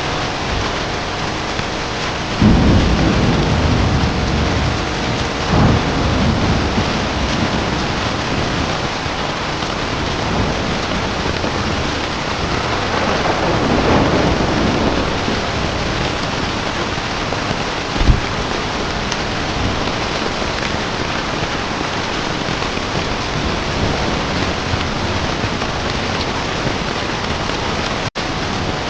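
Steady heavy rain with rolling thunder: a low rumble swells about two and a half seconds in, another soon after, a longer roll around the middle, and a short sharp crack about two-thirds of the way through. The sound briefly cuts out just before the end.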